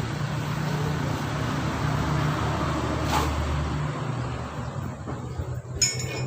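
An engine running steadily in the background, a low even hum that eases off after about four seconds, with a short sharp click near the end.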